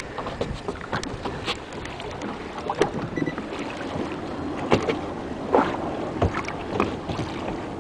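Redfish (red drum) drumming while held out of the water, with irregular knocks and handling noise.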